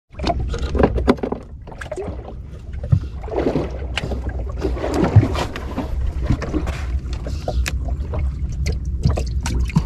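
Small wooden fishing sampan at sea: a steady low rumble with scattered knocks and clicks on board.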